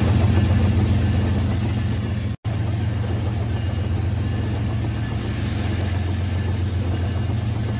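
Battery-powered Rail King toy trains running on plastic track: a steady motor hum with wheel rattle. The sound cuts out for an instant about two and a half seconds in.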